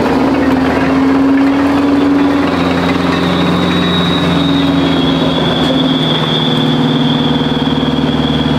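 Grant tank's Detroit Diesel 8V71T two-stroke V8 turbo diesel running steadily under load as the tank drives off, now with the rag cleared from the turbo intake. A high whine joins about two and a half seconds in and holds, dipping slightly in pitch.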